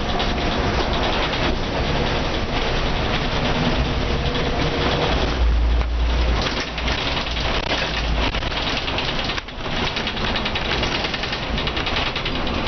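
Inside a Mercedes-Benz O405N bus under way: the diesel engine and ZF automatic gearbox pulling, with a steady rattle of body panels and road noise. A heavy low rumble comes about five and a half seconds in, and the noise dips briefly around nine and a half seconds.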